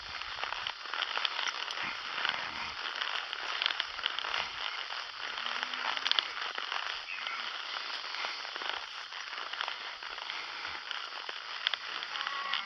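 Brush and twigs crackling and rustling, a dense run of small sharp cracks over a steady rustle.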